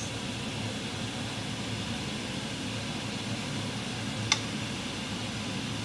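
Steady low hum and hiss at a gas hob as a stir-fry cooks in a non-stick pan, with one sharp click of the spatula against the pan a little over four seconds in.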